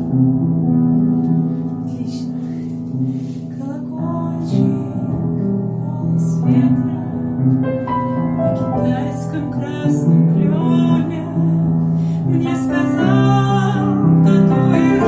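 Instrumental introduction of a song: piano and keyboard chords over a steady bass, with a melody line coming in about four seconds in.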